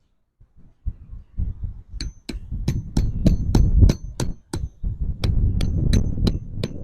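Tent stakes being hammered in: a quick run of strikes with a short metallic ring, about three a second, starting about two seconds in with a brief pause midway.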